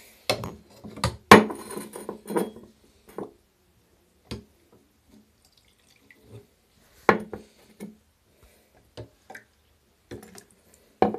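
Water sloshing and splashing inside a Miele front-loader's drum as it turns during a drum-cleaning wash. It comes in irregular bursts with clattering knocks and quiet gaps between them, the loudest about a second in.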